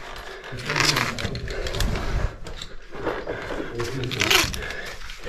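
Caver climbing a rope up a pit shaft: irregular scraping and knocking of gloves, boots and gear against the rock, with two louder hard breaths about a second in and about four seconds in.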